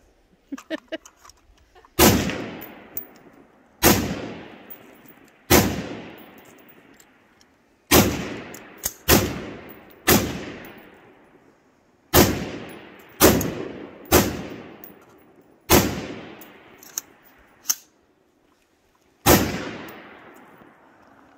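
Kel-Tec SU-16 .223 rifle fired in single semi-automatic shots, eleven in all, spaced about one to three seconds apart. Each shot is followed by an echo that fades over a second or so. A few light clicks come just before the first shot.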